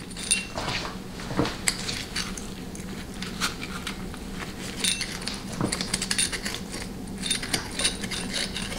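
Light metallic clicks and clinks of a bolt and hand tools against the cast valve body of a 700R4 transmission as the valve body's center bolt is started and snugged down, with quicker runs of clicks near the middle and toward the end.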